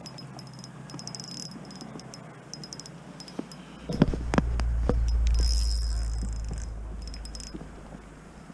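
Small spinning reel on an ice-fishing rod clicking in short quick runs as the line is worked. About four seconds in, a few knocks and then a low rumble on the microphone swell up and fade away near the end.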